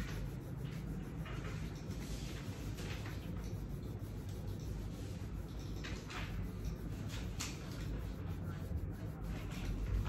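Coloured pencil scratching on paper in short, irregular shading strokes, over a steady low hum.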